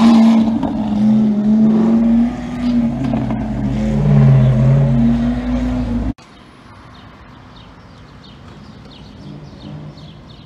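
Lamborghini Aventador's V12 engine running loudly as the car drives off, its pitch rising and falling with the throttle. It cuts off abruptly about six seconds in, leaving faint street ambience.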